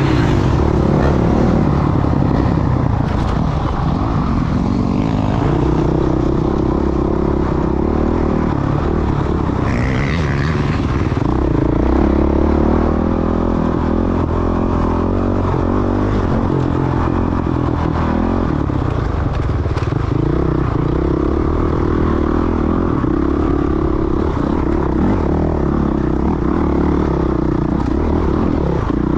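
Off-road dirt bike engine running continuously while being ridden, its pitch rising and falling with the throttle.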